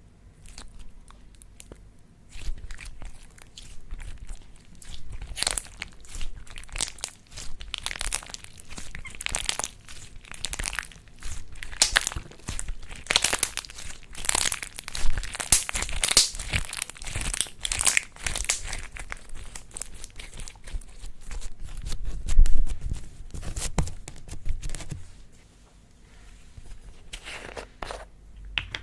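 Slime being kneaded and mixed by hand with added bits, making a dense, irregular crackling that is busiest in the middle and thins out near the end.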